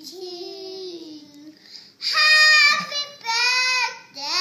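Young children's voices singing wordlessly in high, drawn-out notes, quieter at first, then three loud notes in the second half, the last one gliding upward.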